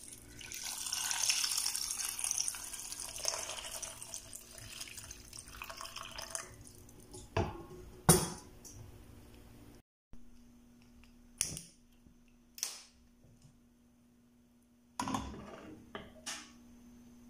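Water poured into a saucepan of chicken feet, onion and whole spices, a steady splashing hiss for about seven seconds as the pan fills. Two sharp knocks follow, then after a pause a few scattered clicks and knocks.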